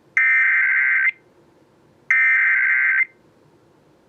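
Emergency Alert System SAME header data bursts: two harsh, buzzy digital screeches about a second long and a second apart. They are the second and third of the three repeats of the coded header that opens a weather alert.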